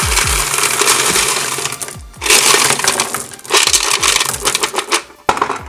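Pebbles and small rocks pouring out of a plastic Tonka toy garbage truck's tipped bin and clattering onto a hard surface, in a few spells of tumbling stones with short gaps between them.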